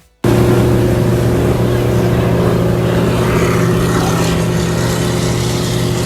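Pontoon boat's outboard motor running steadily at cruising speed, with wind and water rushing past the hull.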